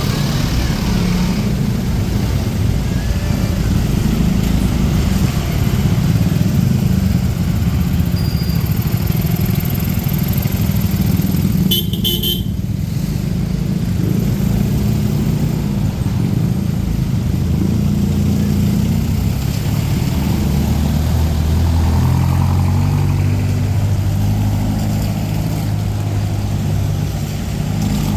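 Street traffic: motorcycle and car engines running close by, with a short horn toot about twelve seconds in. A deeper engine note comes up in the second half.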